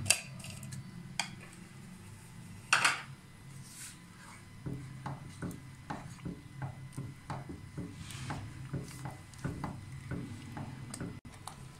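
Silicone ladle stirring thick, simmering firni in a pot, its strokes making soft scraping knocks against the pan about two or three times a second. A single sharper clatter of dishes comes about three seconds in.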